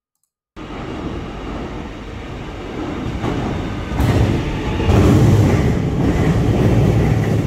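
Melbourne X'Trapolis 100 electric suburban train pulling into a covered station platform. The rumble of its wheels and motors grows louder from about four seconds in as the carriages pass close by, then eases near the end as the train slows.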